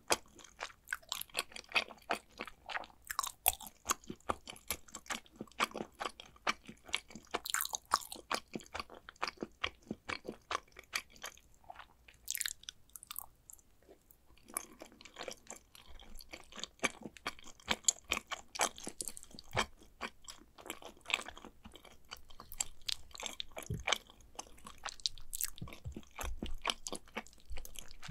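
Close-miked chewing of macaroni and cheese: a dense run of wet mouth clicks and smacks, with a brief lull about halfway through.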